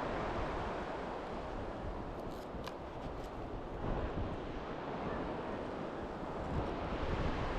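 Strong wind buffeting the microphone over the steady rush of surf, with a few faint clicks about two to three seconds in.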